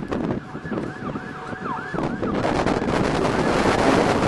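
A siren yelps in quick rising-and-falling cycles through the first half. From about two seconds in, strong gusting wind on the microphone builds and drowns it: the storm's inflow wind kicking up.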